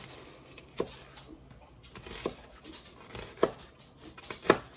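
Knife slicing down through a half onion and striking the cutting board, four cuts about a second apart, the last one loudest.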